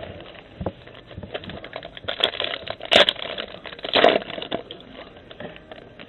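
Trading card packaging being opened by hand: irregular crinkling and crackling, with two louder rips about three and four seconds in.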